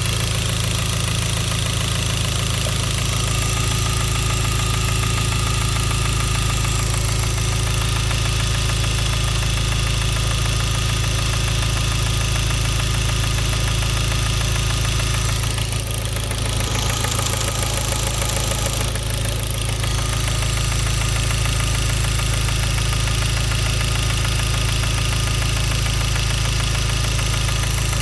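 Hyundai Genesis Coupe 2.0T's turbocharged four-cylinder engine running steadily with a rhythmic rod knock, the sign of a spun connecting-rod bearing after the oil pump failed to lubricate it. The sound dips briefly twice about halfway through.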